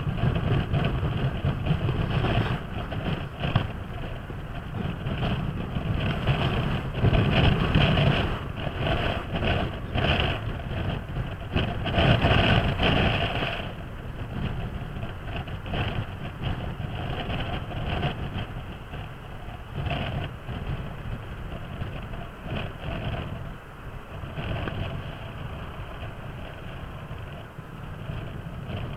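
Kymco Downtown 300i scooter riding in traffic: its single-cylinder engine runs steadily under wind rushing over the microphone. The wind swells louder twice in the first half.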